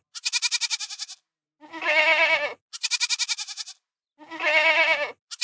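Goat bleating in a repeating pair of calls, about every two and a half seconds: a drawn-out quavering bleat, then a rapid stuttering bleat, each about a second long. The calls repeat identically, like a looped recording.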